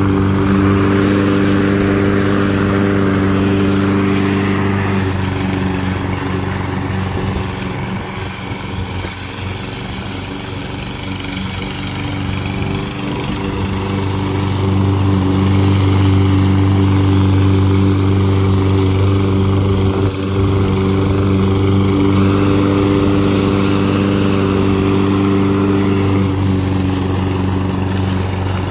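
Toro Personal Pace Auto Drive self-propelled walk-behind lawn mower's 163cc engine running steadily under load while cutting grass. It grows fainter for a few seconds partway through as the mower moves away, then louder again.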